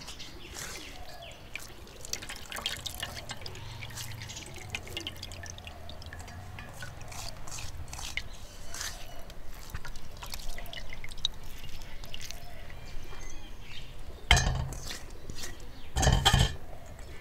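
Milky liquid dripping and trickling through a stainless steel colander into a steel bowl as hands squeeze wet pulp, in many small scattered drips and ticks. Two louder knocks come near the end.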